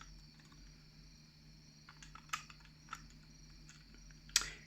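A few light clicks and taps of small lock parts being handled during disassembly of a pin tumbler lock, the loudest near the end, over a faint steady hum.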